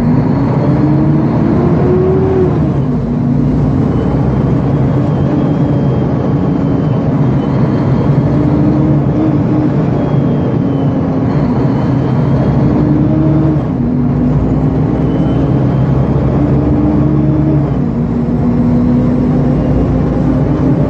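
Diesel engine of a Mercedes-Benz O-500UA articulated bus pulling away and accelerating. Its pitch rises, then drops at gear changes about three seconds in, again past the middle and near the end, climbing slowly between shifts.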